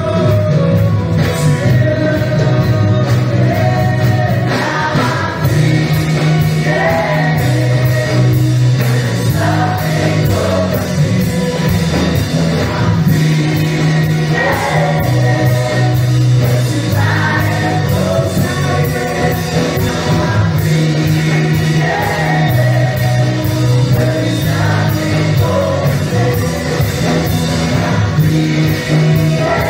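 Live contemporary worship band: several singers in unison over electric guitar and keyboard, with a steady beat.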